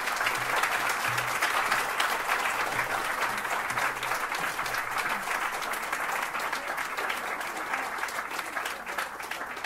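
Audience applauding: steady clapping from many hands, easing slightly near the end.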